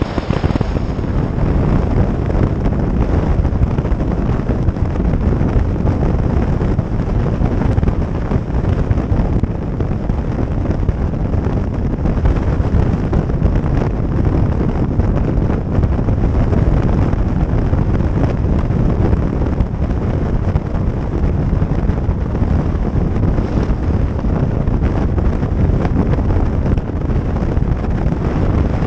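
Steady wind blasting the microphone of a moving motorcycle, a loud, rough low rush with road and engine noise buried underneath.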